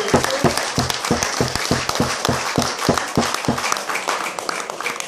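A small group clapping, many hands beating fast and unevenly, gradually getting quieter.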